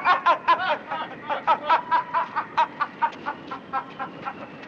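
Men laughing: a long run of short 'ha' pulses, about four or five a second, loud at first and fading away.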